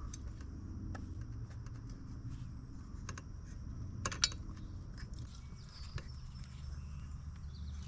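Scattered small clicks and taps of hands and a wrench threading an oxygen sensor into the motorcycle's exhaust pipe, with one sharper click about four seconds in, over a low steady hum.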